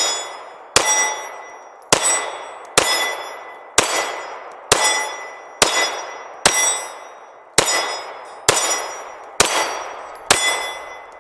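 Sig Sauer P226 9mm pistol fired in a steady string of about a dozen shots, roughly one a second, each followed by a ringing metallic clang that dies away: bullets striking steel targets.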